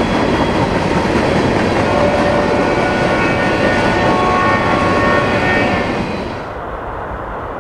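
Freight train of tank cars rolling past, its steel wheels rumbling and clicking on the rails. About six seconds in, the sound drops away to a quieter, duller rumble.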